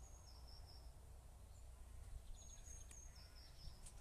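Faint birdsong: a small songbird sings two short high phrases, a thin held note dropping into a quick warble, near the start and again about two and a half seconds in, over a low steady background rumble.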